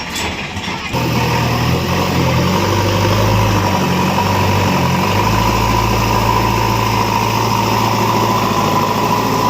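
Heavy diesel engine running steadily at a low speed. It gets suddenly louder about a second in.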